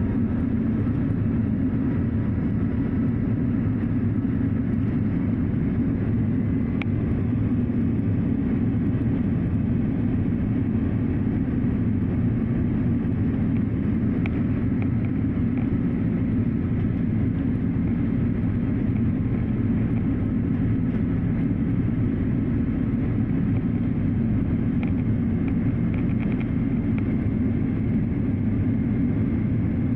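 Steady airliner cabin drone of engines and airflow heard from inside the passenger cabin in flight, a low, even rumble that does not change, with a few faint ticks.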